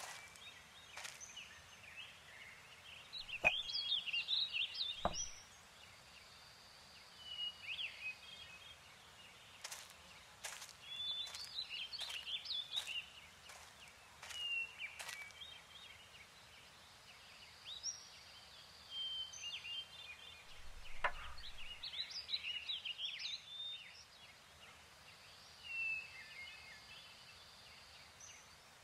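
Woodland birdsong: small birds singing in short chirping phrases that come and go, with a few sharp knocks, two of them close together about four seconds in.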